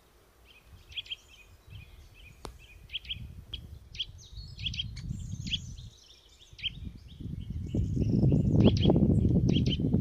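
Birds giving short, sharp chirps again and again, with a single sharp tap about two and a half seconds in. A low rumble comes and goes, and grows loudest in the second half.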